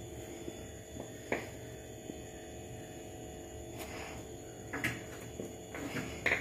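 A low steady hum, with a few soft knocks and brushing sounds as a palm presses and smears besan dough across a granite countertop to stretch fafda.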